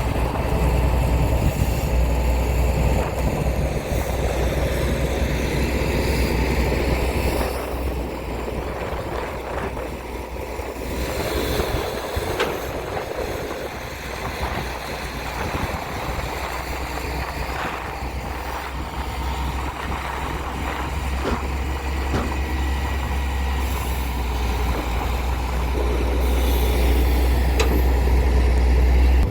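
Heavy diesel engine running with a deep steady rumble, easing off somewhat in the middle and growing louder again toward the end, with a few scattered knocks.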